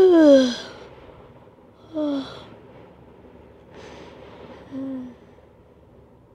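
A woman's voice groaning wearily three times, each groan sliding down in pitch and breathy. The first is the loudest and longest, the last the shortest.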